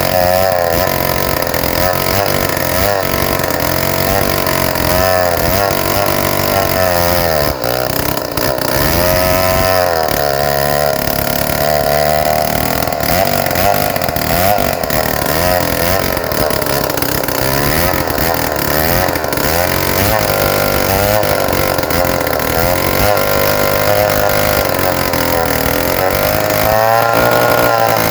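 Stihl MS 070 two-stroke chainsaw running under load, ripping a rain tree (trembesi) log lengthwise. The engine pitch wavers as the chain bites, with brief dips and rises about eight seconds in and again near the end.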